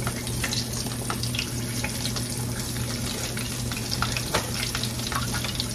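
Floured chicken wings frying in oil in a stainless steel skillet: a steady sizzle with small scattered crackles, over a steady low hum.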